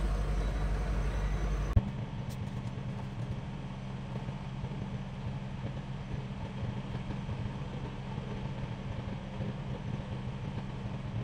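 Steady low hum of an idling truck engine. About two seconds in there is a click and the deepest rumble drops away, leaving a steady hum.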